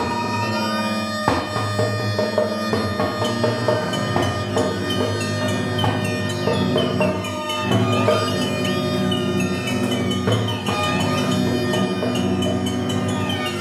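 Contemporary chamber music on historical instruments (viola da gamba, baroque violin, harpsichord, recorder, synthesizer, percussion): sustained low drones under high sliding pitches, peppered with many short clicks and taps.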